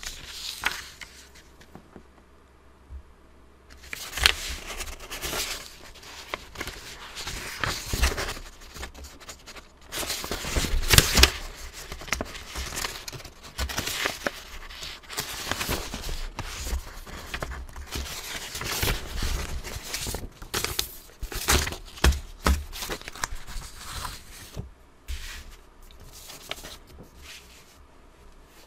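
Irregular rustling, crinkling and scraping handling noise with scattered sharp clicks, starting about four seconds in and dying away near the end.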